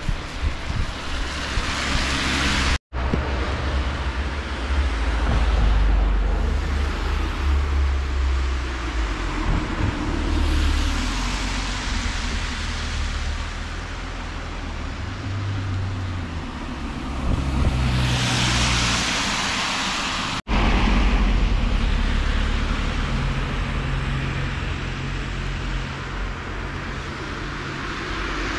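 Street traffic: cars passing one after another, each swelling and fading, over a steady low rumble. The sound cuts out abruptly twice, once about three seconds in and once about two-thirds of the way through.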